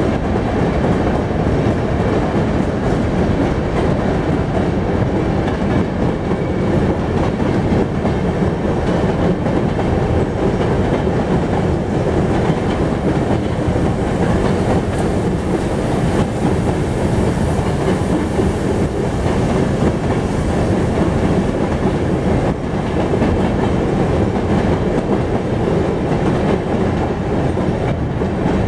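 Freight train of hopper wagons rolling past steadily, its wheels running on the rails without a break.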